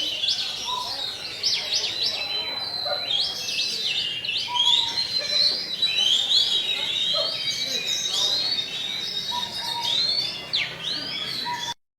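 A songbird singing a fast, unbroken stream of chirps and sweeping whistles, with a thin, steady high note held under much of it. It stops abruptly near the end.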